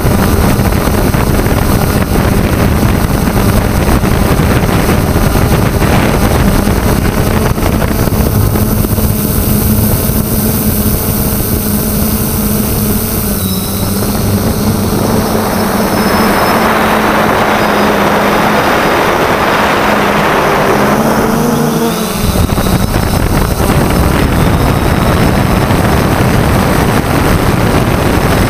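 3DR Solo quadcopter's electric motors and propellers humming steadily, picked up by the GoPro on the drone, over a constant rush of wind noise on the microphone. The hum's pitch wavers and climbs briefly about twenty seconds in.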